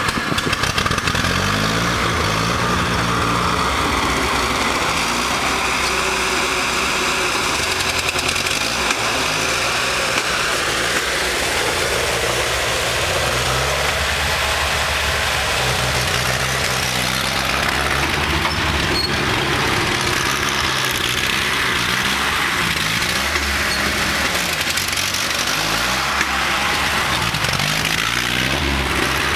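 Massey Ferguson 35 tractor engine running and being revved as the tractor is driven about close by, its pitch rising and falling again and again.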